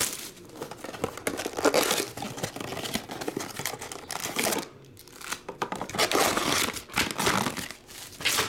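Cellophane shrink wrap crinkling and tearing as it is peeled off and crumpled from a trading-card blaster box, in irregular bursts with a brief lull about halfway through.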